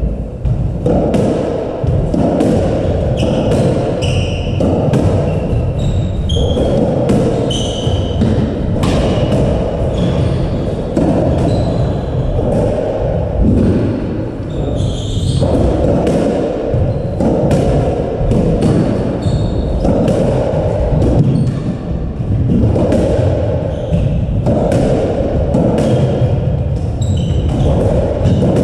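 A squash rally: the ball is struck by rackets and smacks off the walls and wooden floor of the court again and again, at uneven intervals. Short high squeaks, from shoes on the court floor, come between the hits.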